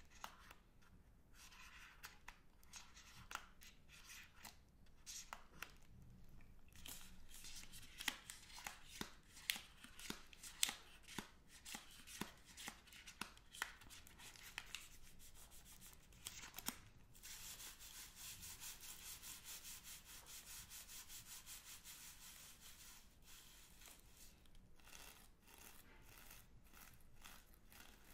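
Wrappers of two Magnum chocolate bars crinkled and rubbed between fingers close to the microphone. A few soft crackles at first, then many sharp crackles from about six seconds in. Around seventeen seconds it becomes a steady rustle for several seconds, then thins to scattered crackles near the end.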